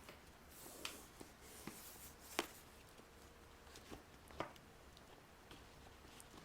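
Calligraphy pen nib scratching faintly on paper in short, separate strokes, with a few sharper ticks, the clearest about two and a half seconds in and again about two seconds later.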